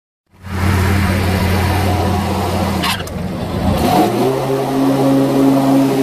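Exmark 48-inch walk-behind mower's engine running steadily while mowing, its note shifting higher about four seconds in as the engine speeds up. A brief click just before three seconds in.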